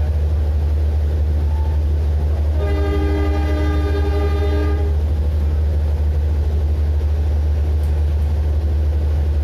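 Trains running with a steady low rumble, heard from inside a carriage, and a train horn blowing one long note of about two seconds, starting about three seconds in.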